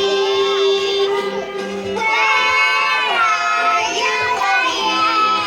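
Four-year-old children singing a song with music.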